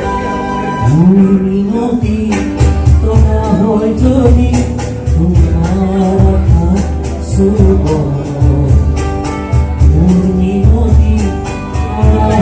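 A man singing a song live to his own acoustic guitar, with the guitar strummed in a steady rhythm under the melody.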